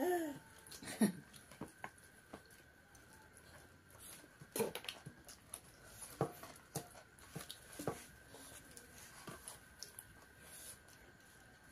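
Mealtime handling noise: scattered clicks and knocks of hands and a spoon against a steel plate and plastic bowls as food is scooped up by hand. A short falling voice-like sound comes at the very start, and the loudest knock is about a second in.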